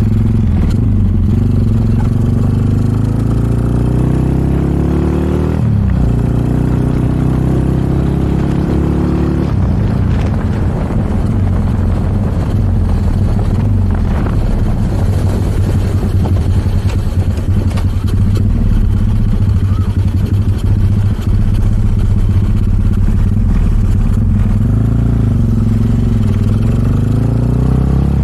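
Small motorcycle engine and exhaust heard from the rider's seat while riding. The engine pitch climbs as it accelerates, drops at a gear change about six seconds in, and climbs again. After about ten seconds it settles into a steady cruise under rushing wind noise.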